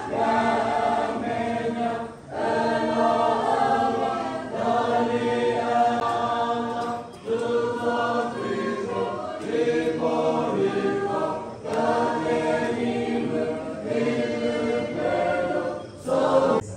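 A congregation singing a hymn together, in long held phrases a couple of seconds each with short breaths between.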